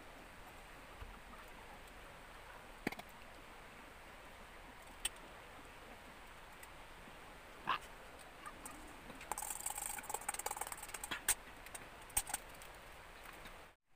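Hands laying lemongrass stalks on a stainless steel serving tray: a few faint, scattered taps and clicks, and a stretch of crackly rustling about nine to eleven seconds in. The sound cuts off suddenly just before the end.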